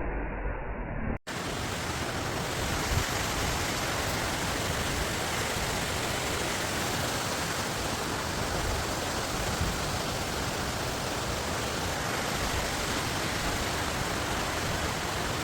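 Waterfall rushing: a steady, even roar of falling water that starts abruptly about a second in, after a short stretch of low rumble.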